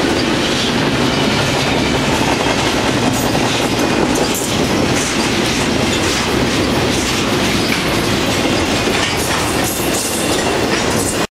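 Double-stack container train's well cars rolling past at speed: a steady rumble with the clickety-clack of wheels over rail joints. The sound cuts off suddenly near the end.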